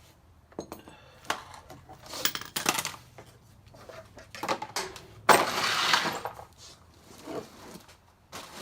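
Metal tools and engine parts clinking and knocking during hand work, with a louder rattling clatter lasting under a second about five seconds in.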